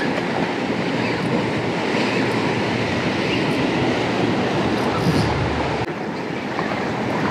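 Surf breaking and washing over rocks: a steady rushing noise whose low rumble drops away about six seconds in.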